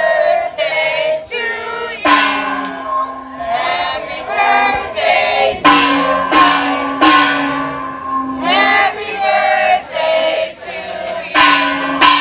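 A group of voices singing a birthday song together, with a few sharp percussive hits along the way.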